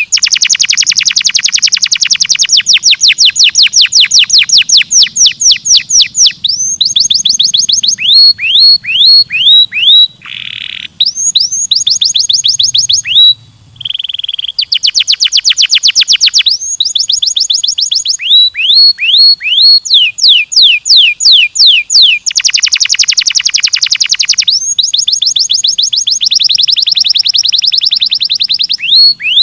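Canary singing loudly in long tours of repeated rising notes: fast trills of many notes a second alternate with slower series of separate upswept notes, with brief breaks about ten and thirteen seconds in.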